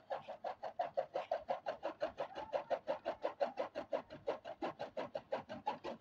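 Chaff cutter chopping green fodder: its flywheel blades strike in a fast, even rhythm of short chops, about seven a second.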